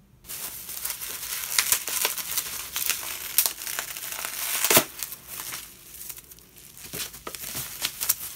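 Shipping packaging being torn open and crumpled by hand: dense crinkling and crackling for about five seconds, with one sharp, loud rip near the middle, then quieter rustling and scattered clicks.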